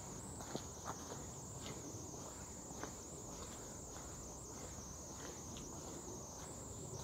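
A steady high-pitched whine over low background noise, with a few faint scattered clicks.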